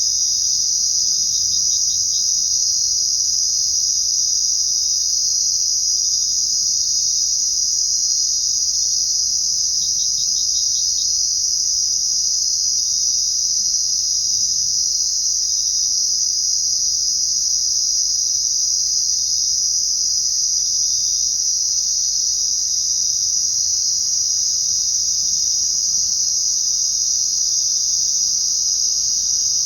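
Crickets chirring in a dense, steady high-pitched chorus, with a closer insect giving a short pulsed trill about a second and a half in and again about ten seconds in.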